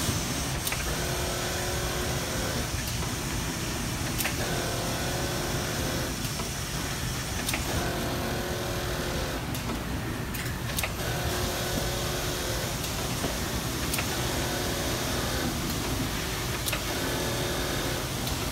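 Strobel KA-ED automatic roll-padding machine stitching a lapel: its motor whines in stretches of one to two seconds that start and stop over and over, with clicks between them, over a steady factory hum.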